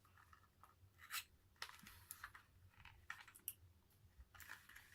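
Faint scratching and clicking of a small cardboard product box being handled and opened, with a few brief scrapes spread through.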